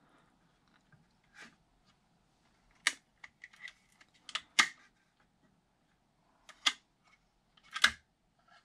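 Hard plastic clicks and clacks from a 3D-printed airsoft gun housing being handled, its parts knocking and snapping against each other. Several sharp, irregularly spaced clicks, the loudest one near the end.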